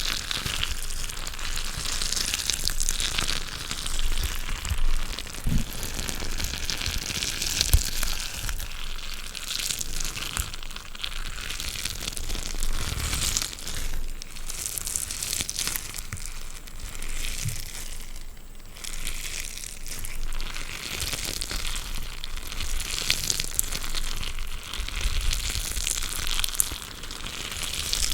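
Close-miked crinkling and crunching from anti-stress balls being squeezed and worked in the hands: a dense, irregular crackle of small clicks.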